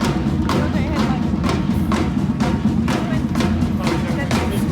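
Music with a steady drum beat, a little over two beats a second.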